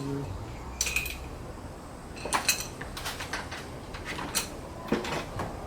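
Small metal parts and tools clinking as they are handled and set down: a handful of short, separate clinks.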